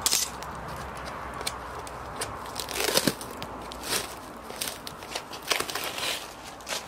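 Charcoal fire in a steel fire pit crackling, with irregular sharp pops and snaps, a few louder clusters partway through.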